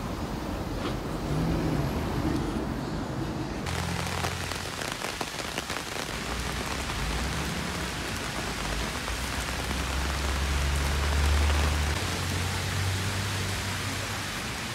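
Heavy downpour on pavement: a dense, steady hiss of rain that cuts in abruptly about four seconds in, with a low engine hum of passing traffic underneath. Before that, quieter street traffic.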